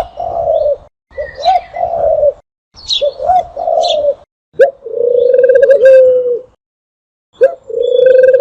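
Dove cooing in a series of phrases a second or more long, separated by short silent gaps, with short high chirps from small birds over them.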